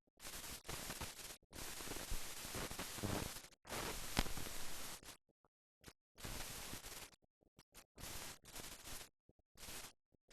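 Hiss and crackle of an old film soundtrack, with no other sound in it, cutting in and out in blocks of a second or two with dead silence between and a sharp click about four seconds in.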